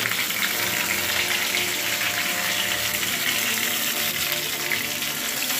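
Whole tomatoes frying in oil in a steel kadhai: a steady sizzle that holds at an even level.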